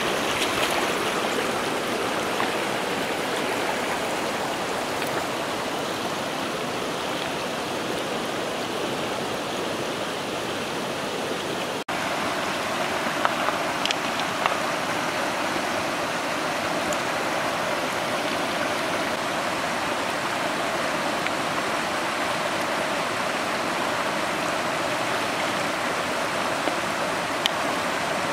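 Shallow rocky river rushing steadily, with a brief break about twelve seconds in and a few sharp taps soon after and again near the end.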